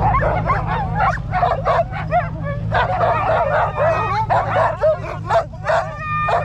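A team of harnessed sled huskies barking, yelping and whining all at once, many high overlapping calls with no pause: the excited noise of sled dogs hitched and waiting to run. A steady low rumble runs underneath.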